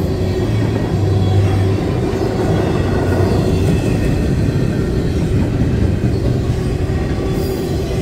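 CSX intermodal freight train's double-stack container well cars rolling past over a grade crossing: steady, loud wheel-on-rail running noise.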